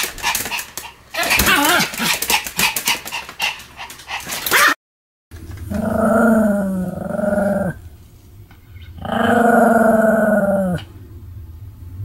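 Pomeranian barking in a fast, unbroken string while it spins, with sharp clatter mixed in. After a brief cut to silence, two long, drawn-out, slightly falling vocal calls follow.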